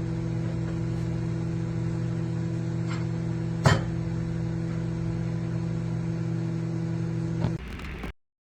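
COMFEE countertop microwave oven running with a steady electrical hum, with one sharp click about halfway through, then cutting off abruptly near the end.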